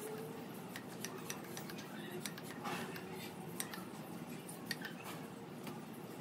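Irregular light metallic clicks and taps from handling an aluminium mini bike pump and its flexible hose fitted to a tyre valve.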